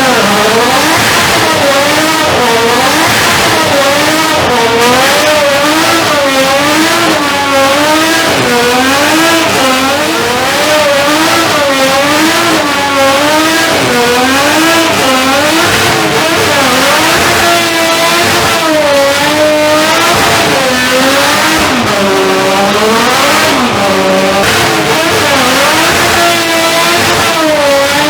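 Nissan Stagea's RB straight-six held at high revs in a burnout, the engine note swinging up and down about once a second over a steady hiss of spinning tyres.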